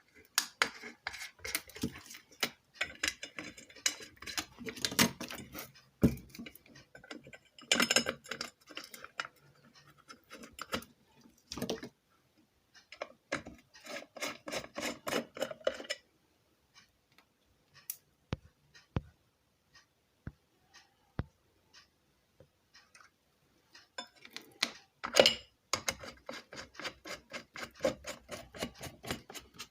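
Metal parts of a ceiling fan clinking, rattling and knocking as they are handled and pressed together, in irregular clusters with a few single sharp ticks in a quieter stretch past the middle.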